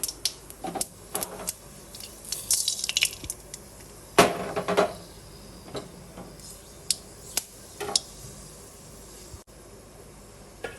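Mustard seeds spluttering in hot sesame oil during tempering: scattered sharp pops and crackles, with a louder clatter against the pan about four seconds in.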